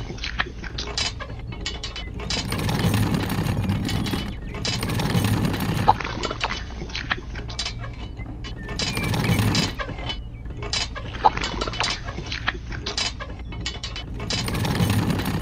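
Toy wheelbarrow's small plastic wheel rolling over sandy ground in four gritty runs of one to two seconds each, with scattered plastic clicks and knocks between the runs.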